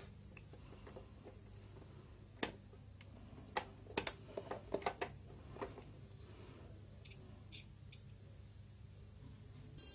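Scattered sharp plastic clicks and taps from a digital multimeter and its test probes being handled, with a cluster of clicks about four to five seconds in, over a faint steady low hum.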